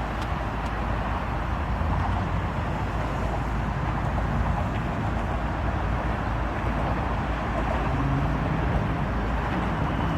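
Steady rumbling vehicle noise with no clear rise or fall, strongest in the low end.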